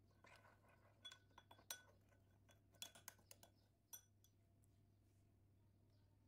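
Metal spoon stirring oil and spices in a small glass bowl, clinking against the glass in quick runs of light taps, with a last single clink about four seconds in.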